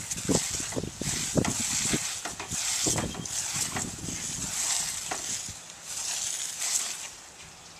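Garden hose spray hissing onto grass while a Jack Russell terrier snaps and scuffles at the stream, making irregular short low snaps that come most thickly in the first few seconds. The hiss fades near the end.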